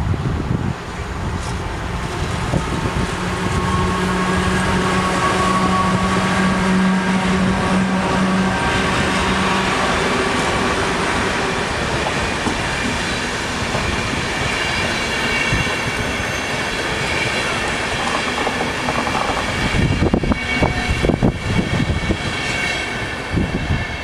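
PKP Intercity EP09 electric locomotive and its passenger coaches running past on the rails: a steady rush of wheels on track, with a low hum in the first few seconds and high whining tones from the wheels in the second half. A quick run of clacks comes near the end as the last coaches cross the rail joints.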